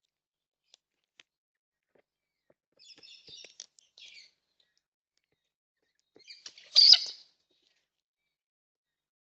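Birds calling: a short run of high chirps about three seconds in, then one louder, harsher screech about seven seconds in.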